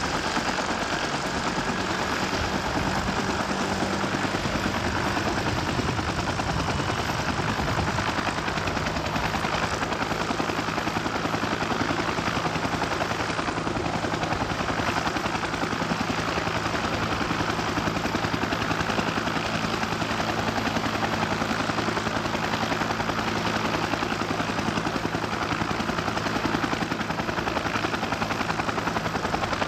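Bell UH-1 Huey helicopter running on the ground with its rotor turning: a steady turbine and rotor noise with a rapid, even beat from the blades.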